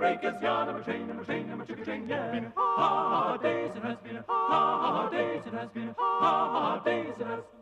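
Background music: unaccompanied voices singing in harmony, with three long held notes.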